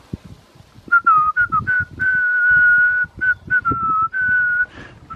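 A person whistling a tune: a run of short notes with small pitch steps and one long held note about two seconds in. Soft clicks and rustles of wires being handled run underneath.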